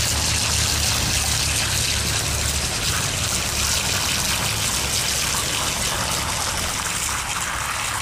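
Garden hose spray hitting the rocks of a pondless waterfall, with water splashing and running down over the stones: fine sediment being rinsed down into the waterfall's HydroSieve filter basin. A steady spray that starts suddenly just before.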